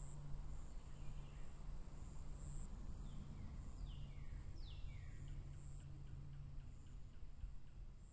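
Outdoor ambience: a steady high insect trill that swells and fades about once a second, with a few short downward-sliding bird calls in the middle, over a low steady hum.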